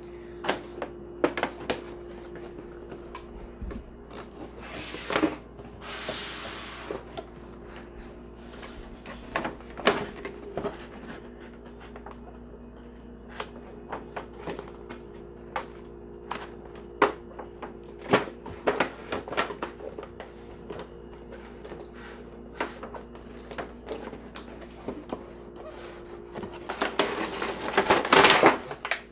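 A cardboard box holding a toy metal cookware set being handled: scattered knocks and taps, with a longer rustling scrape a few seconds in. Near the end comes a burst of metallic clattering as the small stainless-steel pots are pulled from the packaging.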